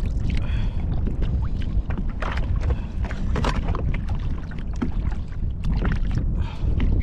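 Wind buffeting the microphone over water sloshing around a kayak, with scattered short knocks.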